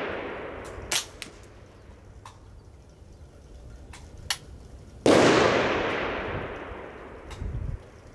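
A suppressed .22 LR rifle shot about five seconds in, sharp and followed by a long echo that dies away over a couple of seconds; the echo of the previous shot is still fading at the start. A few light clicks fall between the two.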